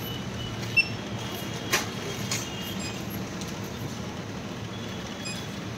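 Steady background hum of a supermarket, with two short knocks about a second and nearly two seconds in.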